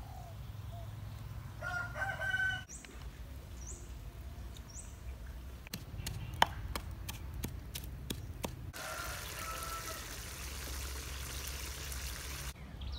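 A rooster crows about two seconds in, with small birds chirping after it. Then a wooden pestle knocks repeatedly in a clay mortar, and food sizzles in a hot wok for the last few seconds.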